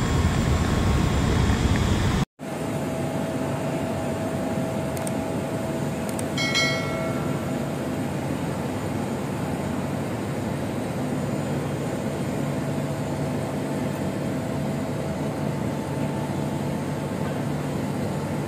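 Steady drone of a parked jet airliner on the apron, with a low hum and a faint whine, broken by a brief dropout about two seconds in. A short high tone sounds about six and a half seconds in.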